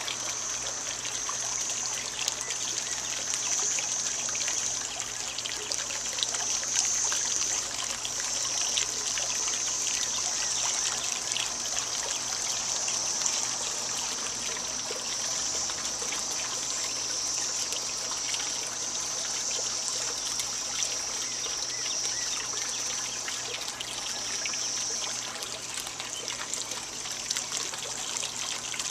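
Steady outdoor ambience of trickling water, under a thin, high hiss that swells and fades every few seconds.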